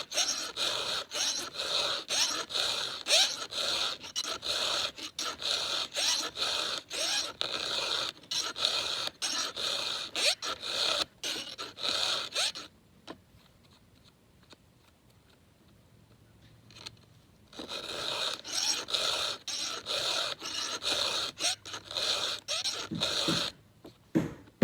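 Round chainsaw file rasping across the cutters of a new, never-sharpened Husqvarna X-Cut chain in quick strokes, about two a second. The filing stops for about five seconds midway, then resumes. A couple of duller knocks come right at the end.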